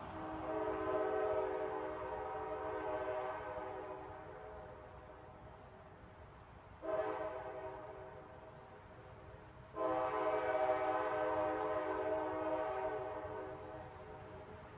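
A distant train horn sounding several blasts at a chord of steady pitches. The first is a long blast that fades out. Fresh blasts cut in sharply about seven and ten seconds in, each dying away slowly.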